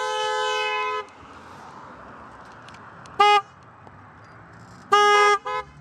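Two-tone car horn honking: a held honk that stops about a second in, a short toot about three seconds in, then a longer honk and a quick tap near the end, with steady road noise between.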